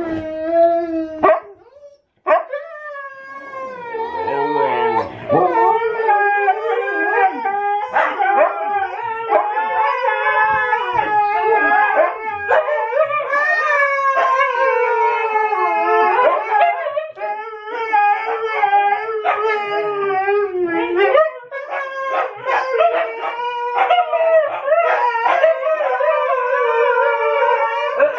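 Several Siberian huskies howling together, their overlapping voices gliding up and down in a long chorus, with a short break about two seconds in.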